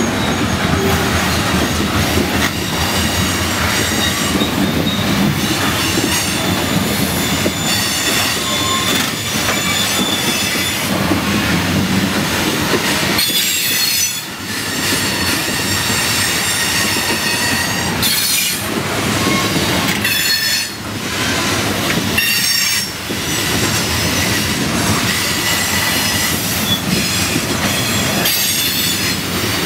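Loaded CSX coal hopper cars rolling past: steel wheels running and clicking over the rail, with high-pitched wheel squeal that comes and goes.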